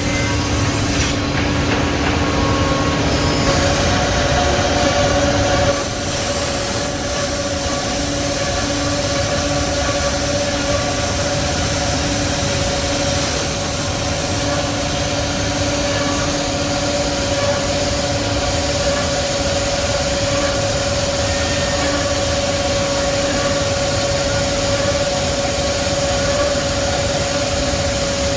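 SMJH 1500 4A four-head CNC mortise milling machine running, with a steady whine from its spindle motors over a continuous noisy hum.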